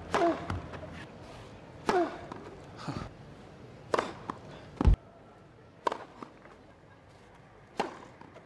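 Tennis serves: sharp pops of a racket striking the ball, several in a row, one to two seconds apart, with a heavier low thud about five seconds in. Short falling voice sounds follow the first two hits.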